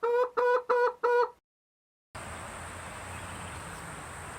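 A fowl giving a rapid run of short, even, level-pitched calls, about four a second, that breaks off abruptly. After a brief dead gap, a steady background hiss follows.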